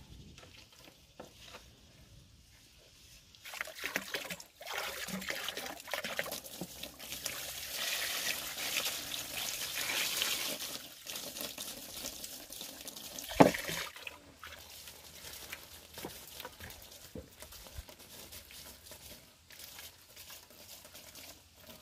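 Water poured from a cooking pot, splashing and running over a floor of bamboo slats for several seconds. About halfway through comes one sharp knock, the loudest sound here.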